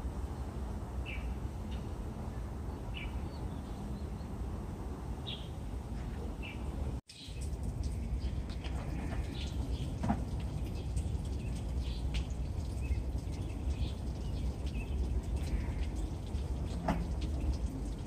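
Sparrows chirping in short, scattered calls, more often in the second half, over a steady low rumble. The sound drops out briefly about seven seconds in.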